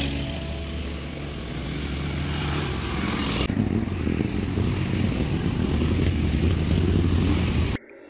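Engines of several quad bikes (ATVs) running as they ride along a dirt trail, slowly growing louder as they come closer. The sound cuts off suddenly near the end.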